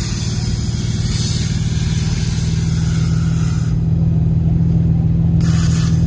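Turbocharged Infiniti G37's V6 engine idling steadily, heard up close with the hood open.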